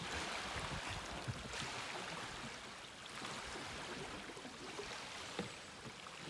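Faint, steady sound of running water, with a few light knocks.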